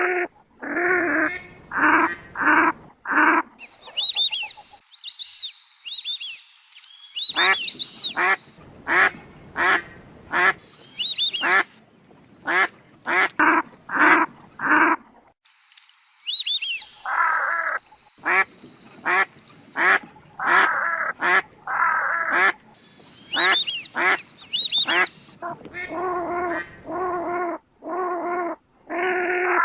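Ducks calling in a long series of short quacks, with stretches of high, wavering whistled calls mixed in, about four to eight seconds in and again near three-quarters of the way through.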